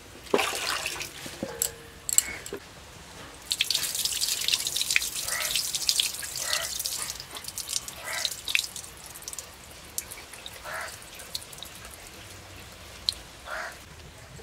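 Water splashing and dripping in a steel bowl as food is rinsed by hand. The splashing is loudest and most continuous through the middle, with a couple of sharp knocks near the start and single drips and splashes later.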